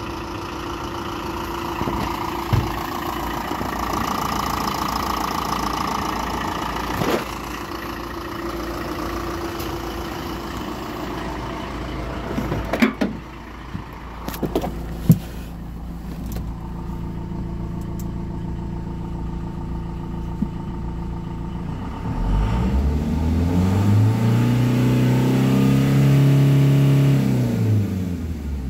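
2018 LDV V80 van's 2.5-litre four-cylinder turbo-diesel engine idling steadily, with a few sharp knocks around the middle. Near the end it is revved once to about 3,700 rpm, the pitch rising, holding, then falling back toward idle.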